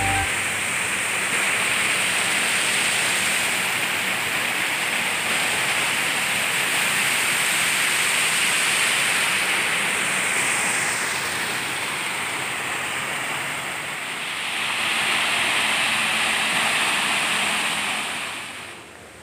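Small waterfall pouring over stepped rock ledges: a steady rush of falling water that eases a little about two-thirds of the way through, swells again, and fades near the end.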